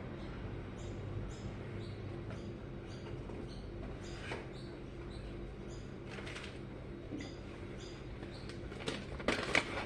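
Faint, regular high-pitched chirps, about two a second, with a single click about four seconds in and a clatter of clicks and rustling near the end.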